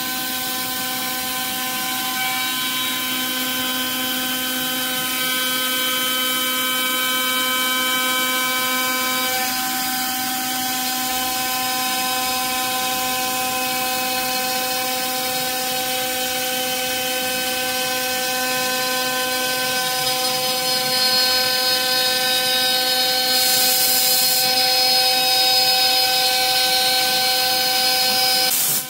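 The spindle of a home-built PrintNC Pro CNC router whines steadily while its endmill cuts the outside contour of a 6061 aluminium plate. The whine holds several tones that shift a little about nine seconds in and grows slightly louder later on, with a brief hiss near the end.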